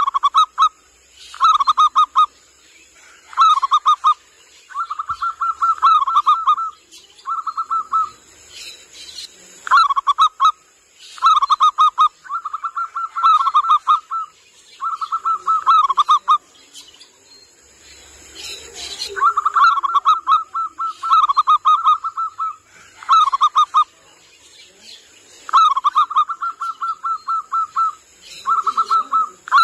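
Zebra dove (local perkutut) cooing: phrases of quick staccato notes, short and long, repeated more than a dozen times with brief pauses and one longer pause about halfway through. This is the call played as a lure and tutoring call for perkutut.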